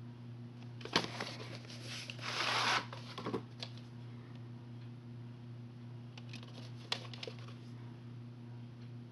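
A VHS cassette and its sleeve handled close to the microphone: sharp clicks about a second in, a short rub that swells and stops about three seconds in, then a few light clicks near seven seconds, over a steady low hum.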